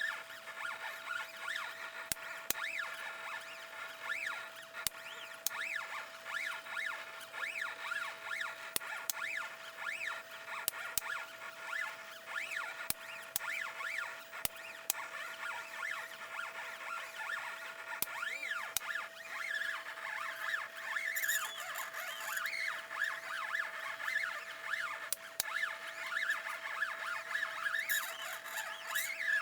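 Stepper motors of a belt-driven Arduino GRBL pen plotter whining as it draws, their pitch rising and falling in quick glides over a steady hum. Scattered sharp clicks come from the solenoid pen lift.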